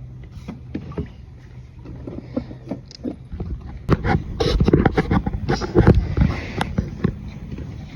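A low steady hum that stops about three seconds in, then a run of irregular knocks, clunks and rustling from things being handled.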